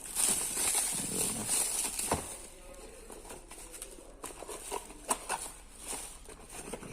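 Rustling and crinkling of parts packaging being handled, with a few sharp clicks and knocks as parts are picked up and set down.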